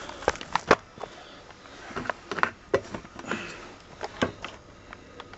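Scattered clicks, light knocks and brief rustles of hands handling a camcorder and its screw-on metal step-up ring adapters.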